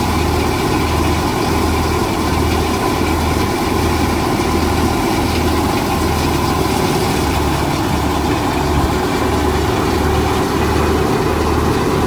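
Wheat thresher running steadily while wheat sheaves are fed into it. It makes a loud, continuous machine noise with a low hum that pulses about one and a half to two times a second.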